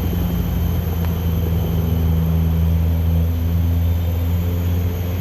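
A steady, loud, low engine drone with a constant pitch.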